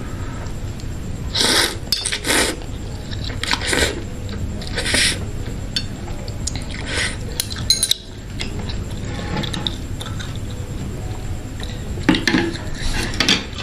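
Spicy instant noodles in broth being slurped in several short noisy pulls, with chewing and metal chopsticks clinking against the bowl.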